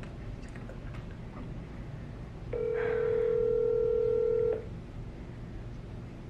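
Ringback tone of an outgoing call playing through a smartphone's speaker: one steady ring about two seconds long, starting a couple of seconds in, while the call waits to be answered.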